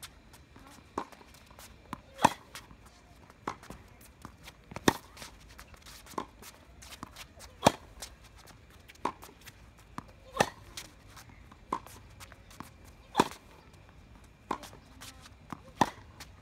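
Tennis rally on a hard court: crisp racket-on-ball hits alternating between the near and far player about every 1.3 seconds, the near player's shots louder, with fainter taps between.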